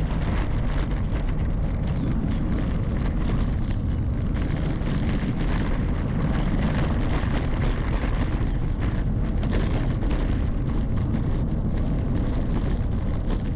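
Steady wind rush and road noise from a bicycle riding on asphalt, heard through a handlebar-mounted GoPro Hero 11's microphone.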